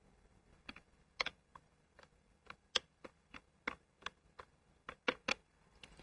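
Buttons on a push-button desk telephone being pressed one after another to dial a number: about fifteen sharp plastic clicks at an uneven pace, with no dial tones heard.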